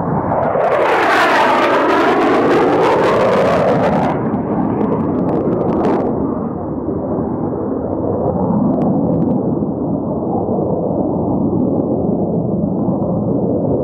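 Military fighter jet passing overhead: a loud jet roar with a sweeping, phasing whoosh for the first four seconds, then a duller rumble that carries on as it flies away.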